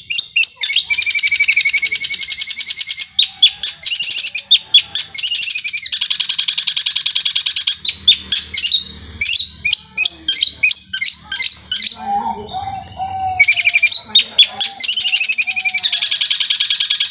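Long-tailed shrike (cendet) singing a very fast rolling trill, like a sewing machine. The long stretches of rapid roll alternate with choppier, separate high notes, and there is a lower warbled phrase about two-thirds of the way through.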